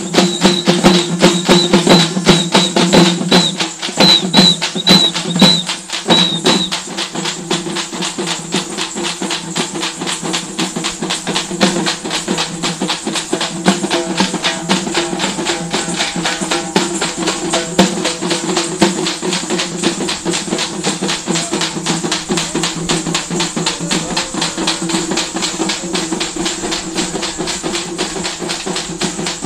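A troupe of dappu frame drums struck together with sticks, a fast, dense, driving rhythm of sharp beats. A short high tone repeats over about the first seven seconds, and the drumming eases a little in loudness after that.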